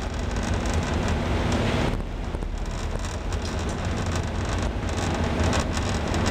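Steady low rumble of an anchor-handling vessel's engines under a rushing noise of wind and breaking sea. The rush is strongest for the first two seconds, then drops back a little.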